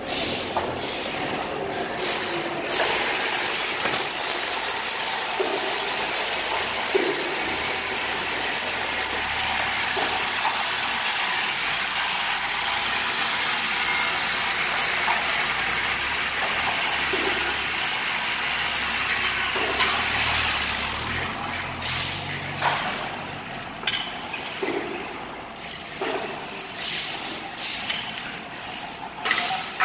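Bocedi stretch hood pallet-wrapping machine running through its cycle: a steady hiss for most of the time, then from about twenty seconds in a deeper hum with scattered clicks and knocks.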